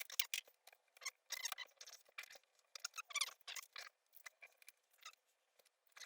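Small plastic and metal laptop parts being handled: an irregular run of short clicks, taps and scrapes as the internals and connectors are worked loose.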